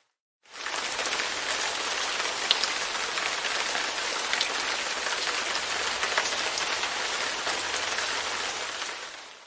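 Light rain pattering on a window pane: a steady hiss of drops with a few louder single drops. It fades in quickly after a brief silence at the start and fades out near the end.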